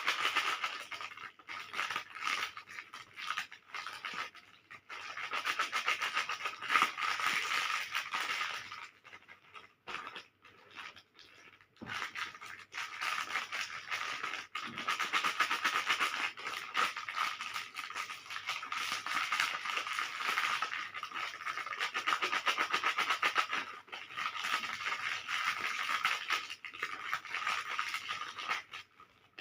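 Plastic candy wrappers crinkling and rustling in long stretches of rapid, fine crackle, with short pauses between handlings.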